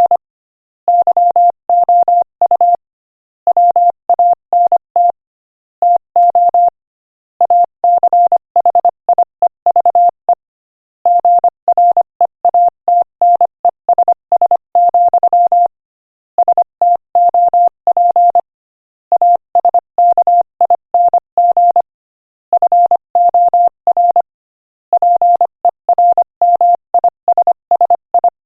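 Morse code sent at 25 words per minute as a single steady beep tone, keyed on and off in quick dots and dashes. The groups of characters are separated by short silences between words.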